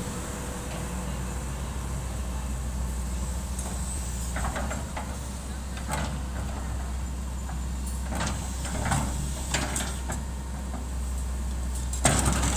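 Daewoo hydraulic excavator's diesel engine running steadily, with scattered clanks and scrapes from the bucket working soil and stones. A louder clatter comes near the end.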